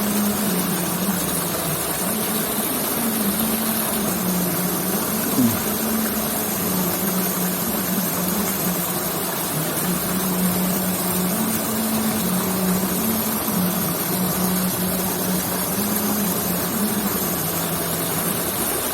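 A small engine running steadily, its hum wavering slightly in pitch, over a constant rushing hiss, with one brief sharp sound about five seconds in.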